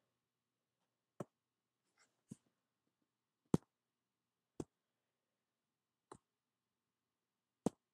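About six light, separate taps of a hand on the side of a MacBook's screen, spaced roughly a second or more apart. Each tap jolts the laptop so that SmackBook switches to another desktop space.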